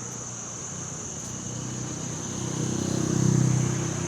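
A motor vehicle passing on the road, growing louder to a peak about three seconds in and then fading. A steady high insect chirr from crickets runs underneath.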